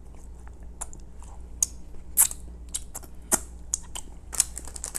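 Person chewing a soft chocolate-glazed dessert close to the microphone: irregular small wet clicks and smacks, the loudest a little over two seconds in and again just past three seconds.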